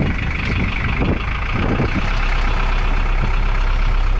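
A Żuk van's engine running steadily while the van is rocked to get it moving, with a few knocks and clunks in the first two seconds.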